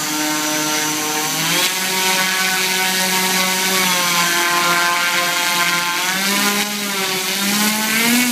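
HobbyKing CA120-70 brushless outrunner motor on a 12S LiPo pack driving the propeller of a 101-inch electric Sukhoi SU-26 model plane in a ground run-up: a steady motor whine with propeller drone. The pitch steps up about a second and a half in as the throttle is opened, holds, and rises again near the end.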